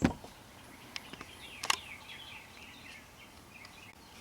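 A few sharp clicks and knocks from handling the hand truck wheel as the old inner tube is pulled out, the loudest at the start and another just under two seconds in. Birds chirp in the background.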